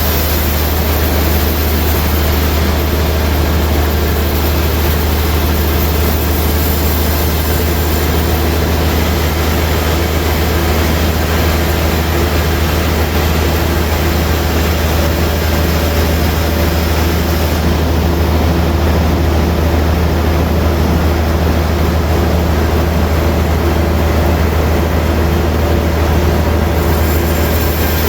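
Sawmill machinery running steadily: a loud, even drone with a strong low hum.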